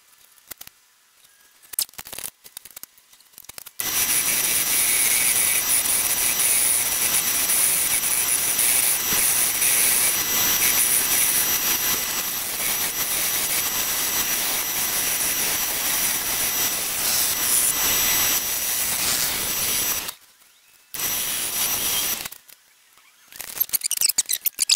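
Wood lathe running with a large red mallee burl spinning on it, a steady loud noise with a faint high whine; it starts about four seconds in, stops about 20 s in, comes back briefly, and breaks into choppy bursts near the end.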